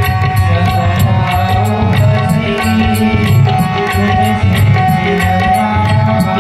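Devotional bhajan music with tabla accompaniment: a held melody line over steady drumming and an even beat of sharp, high strikes.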